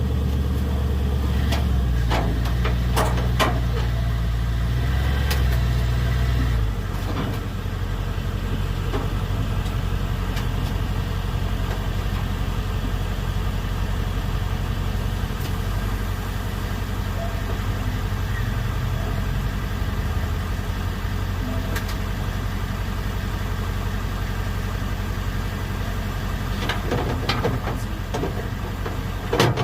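A motor vehicle engine idling steadily, its hum easing down a little about seven seconds in, with a few scattered clicks and knocks near the start and again near the end.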